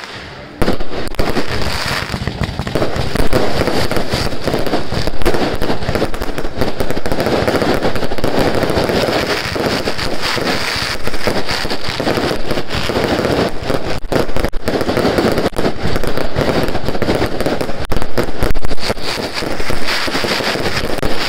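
Aerial fireworks firing in a rapid, unbroken barrage of bangs and crackles, with a few louder bursts standing out.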